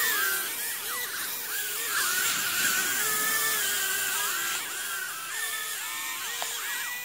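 Small toy drone's electric motors and propellers whining, the pitch swooping up and down quickly and continually.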